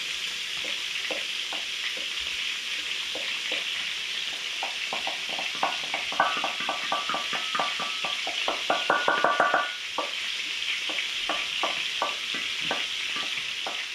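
Garlic and vegetables sizzling in a hot pot, with a wooden spoon scraping and tapping against a stainless steel bowl to knock the garlic in. The taps ring briefly and come in a quick run from about six to nine and a half seconds in.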